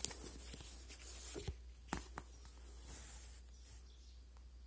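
Books being handled: paper and covers rustling and sliding, with a few light knocks and ticks about a second and a half to two seconds in.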